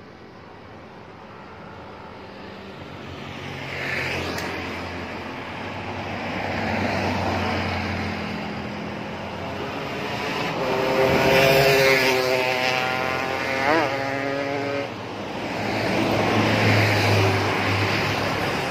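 Heavy vehicles passing close by on a road, engine and tyre noise swelling and fading several times. Midway a multi-tone bus or truck air horn sounds for about four seconds, with a brief up-and-down pitch flick near its end.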